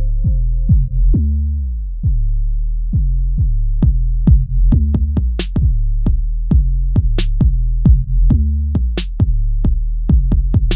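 Instrumental hip hop beat from a drum machine with deep bass and crisp percussion. A held synth tone fades out about a second and a half in, and cymbal-like crashes land about every two seconds from halfway through.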